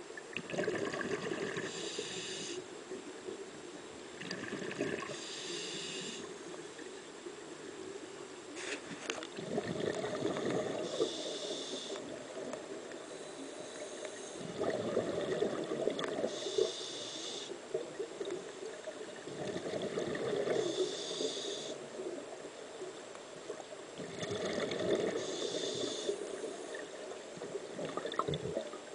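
A scuba diver breathing through a regulator underwater: short hissing inhalations alternate with longer bubbling exhalations in a slow, regular cycle, about one breath every four to five seconds.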